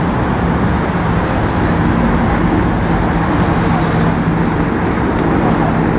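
Steady outdoor background noise: a constant low rumble and hiss with a faint hum, without distinct events.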